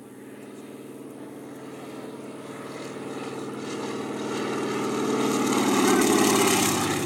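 Propeller engine of a crop-spraying airplane passing by, growing steadily louder, loudest about six seconds in, then starting to fade.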